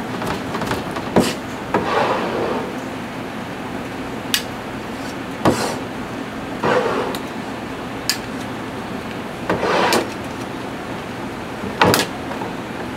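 A large kitchen knife knocking down onto a wooden cutting board, about six sharp separate strikes spread unevenly, with a few short scraping sounds between them as the meat is moved. A steady hum runs underneath.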